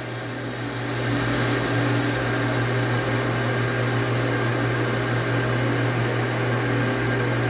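Electric water pump (1.5 HP, 220 V) running steadily with a low hum, having just been switched on by its pressure switch after system pressure fell; the level settles after the first second.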